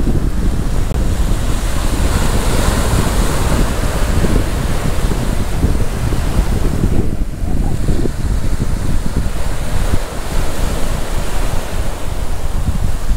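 Sea waves washing onto a sandy beach, with strong wind buffeting the microphone in a low rumble. The wash of the surf swells about two to four seconds in and eases briefly around seven seconds.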